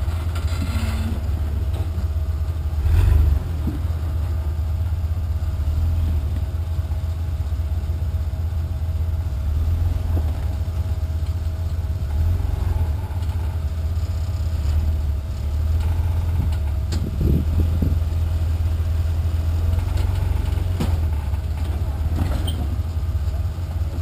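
Rock-crawler buggy's engine running at low revs as it crawls slowly up a steep rock ledge, a steady low rumble, with a few short knocks, one about three seconds in and a couple more past the middle.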